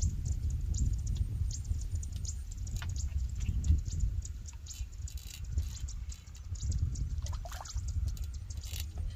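Wind buffeting the microphone as an uneven low rumble, with scattered light clicks and rustles on top.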